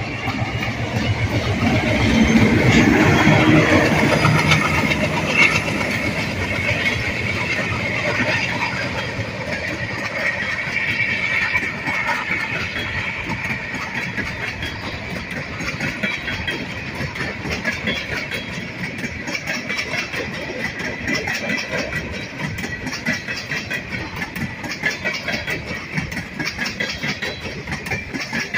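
A diesel freight locomotive passes close by, its engine working hard under load and loudest a few seconds in. A long string of freight cars follows, rolling past with steady wheel rumble and rhythmic clicking over the rail joints.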